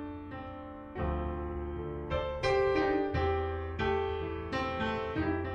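Background piano music: a slow run of struck notes over a held bass.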